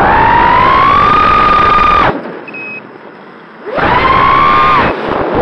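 The brushless motors of an FPV quadcopter (ZMX Fusions 2206 2300kV with DAL 5040 three-blade props) whine loudly, the pitch climbing. About two seconds in the whine drops away abruptly. After about a second and a half it rises again, with a brief dip near the end.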